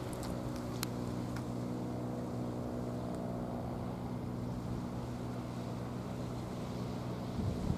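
A steady, low engine hum that holds one pitch throughout, with a few faint clicks in the first second and a half.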